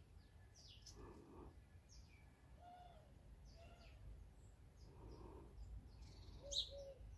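Faint garden bird calls: scattered short high chirps of small birds, with a brighter one near the end, and soft low coos of a pigeon every second or so from about three seconds in.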